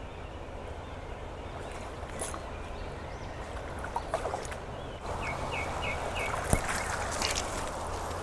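Steady rush of creek water, growing louder about five seconds in, with a bird chirping four short times just after and a few light clicks and rustles.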